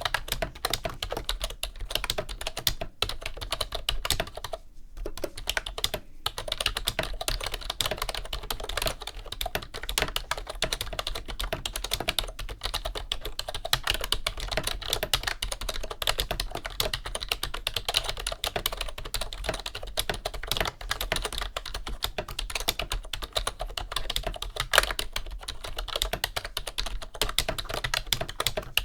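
Continuous typing on a mid-1990s Wyse rubber-dome keyboard with full-height keycaps: a dense clatter of keystrokes, broken by a few brief pauses in the first several seconds.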